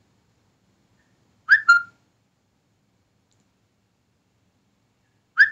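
Near silence, broken about a second and a half in by a single short, high chirp in two quick parts that rises and then holds a steady note.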